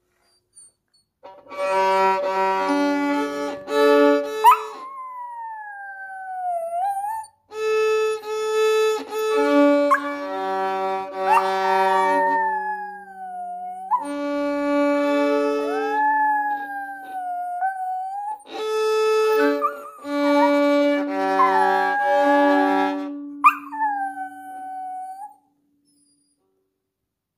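A violin playing held notes, often two strings at once, while a Maltese dog howls along in long wails that slide down in pitch, several times over. The dog howls in response to the violin, which she typically does to double stops or bad playing.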